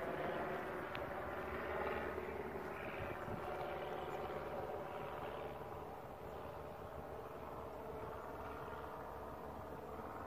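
A distant engine droning steadily and slowly growing fainter.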